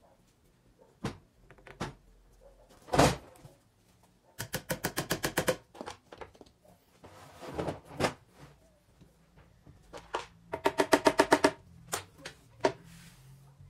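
Solid-wood boards knocked and handled, with a loud knock about three seconds in and another near eight seconds. Twice, a burst of rapid, evenly repeated pulses, about ten a second, that is louder than the knocks.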